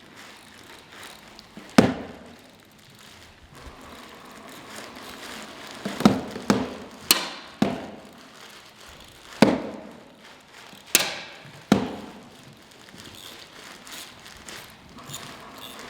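A series of sharp knocks or crashes, each dying away quickly: one about two seconds in, a quick cluster of four between six and eight seconds, then three more spread toward the end.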